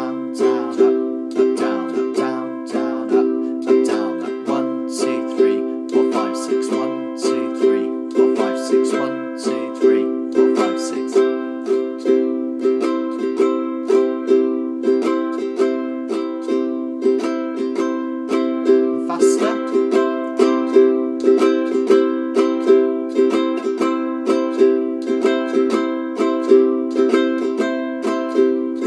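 Ukulele strumming a C chord over and over in the Swiss Army knife pattern (down, down, up, up, down, up), in a steady repeating rhythm.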